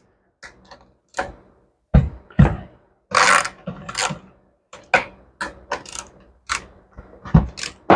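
Scattered sharp clicks and knocks of a tool working on a chainsaw as it is loosened for a chain adjustment, with a short scrape about three seconds in.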